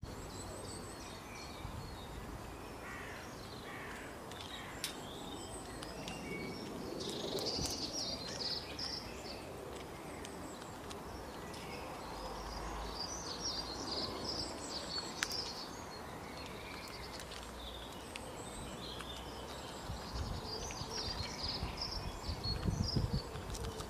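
Small songbirds chirping and trilling on and off over a steady low background hum of outdoor noise, with a few faint sharp clicks.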